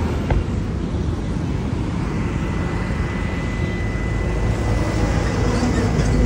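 Steady rumble of highway traffic, cars' engines and tyres passing close by, with a faint steady high whine through the middle.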